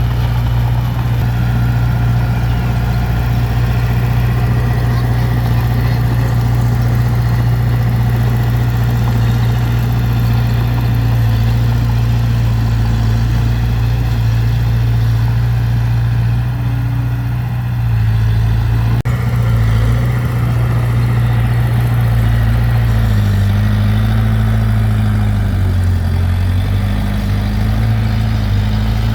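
Heavy diesel engine of earthmoving machinery running steadily and loudly; its pitch dips and recovers a few times in the second half, with a brief sharp break about two-thirds of the way through.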